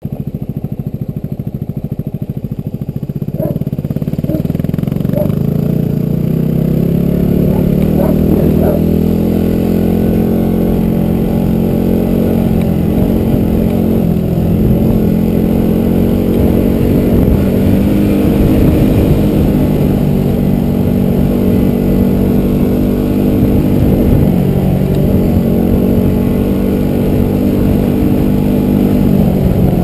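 A vehicle engine running under load, its pitch climbing over the first few seconds and then holding fairly steady with small rises and falls. A few knocks and clatters sound in the first nine seconds or so.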